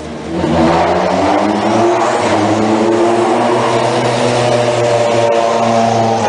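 A rally car's engine running hard, coming in suddenly loud about half a second in and holding a fairly steady note with small rises and falls in pitch.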